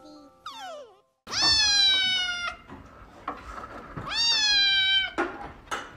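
Kitten meowing loudly: two long, high meows, each lasting about a second. The first comes about a second in and the second about four seconds in.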